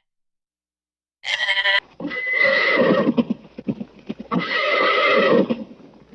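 A short goat bleat about a second in, then a horse neighing in two long whinnies with a stretch of quick short sounds between them.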